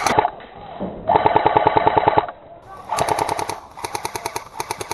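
Airsoft machine gun firing rapid full-auto bursts: fast, even rattling strings of shots, several bursts, the longest about a second.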